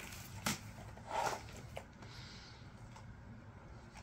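Plastic computer keyboard being handled: a sharp click about half a second in, a short scuff a little after a second, and a lighter click near two seconds.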